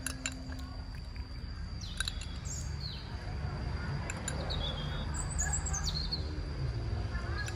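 Small birds chirping: short, high tweets and quick gliding notes every second or so, over a steady faint high-pitched tone.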